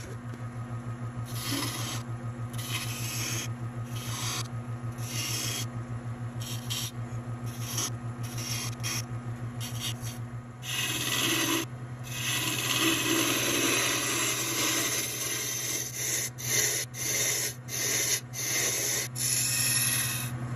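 Jet wood lathe running with a steady motor hum while a hand-held turning tool cuts into the spinning wood blank in a series of short scraping passes. A longer, unbroken cut comes about halfway through, then more short passes near the end.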